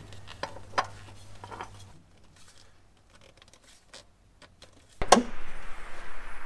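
Light scrapes and clicks of a gloved hand spinning a new oil filter onto the filter mount under a pickup, then a pause. About five seconds in, a sudden sharp knock followed by a noisy hiss lasting about a second and a half.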